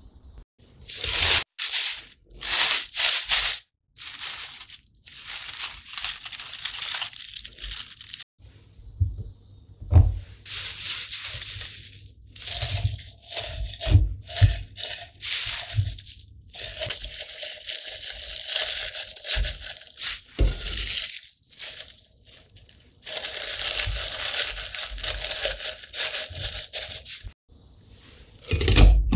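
Dry, brittle shiso leaves crackling and crumpling in irregular bursts as they are handled and pressed down by hand into a mill jar.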